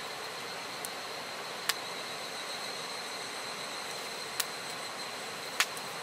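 Wood campfire crackling, with four sharp pops, the last near the end the loudest, over the steady rush of a river and a steady high insect trill.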